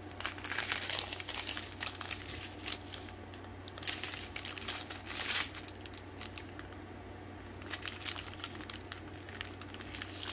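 Small plastic bags of diamond-painting drills crinkling and rustling in spells as they are sorted through by hand.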